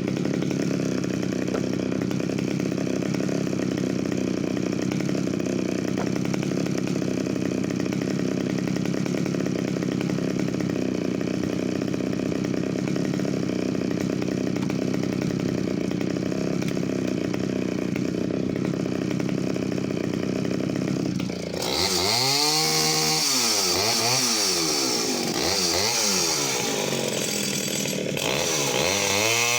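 Pioneer P25 vintage 51cc two-stroke chainsaw running at a steady, even pitch. About twenty seconds in it is revved hard, its pitch rising and falling again and again.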